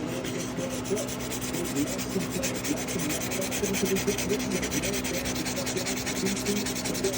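Quick, even back-and-forth rubbing strokes of an abrasive being worked by hand on a lockback pocket knife, over a steady low hum.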